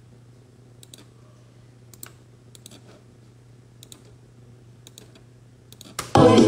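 Sparse clicks of a computer mouse and laptop keys over a low steady hum. Near the end, loud music starts suddenly as a track is played back.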